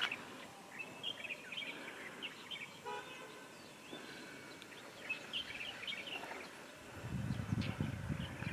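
Birds chirping in open countryside, with a short vehicle horn toot about three seconds in. Footsteps on a gravelly road start near the end.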